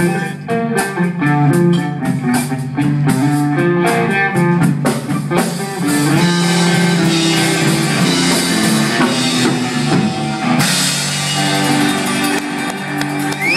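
Live rock band playing: electric guitar and bass over a drum kit, with the cymbals coming in heavier about ten seconds in.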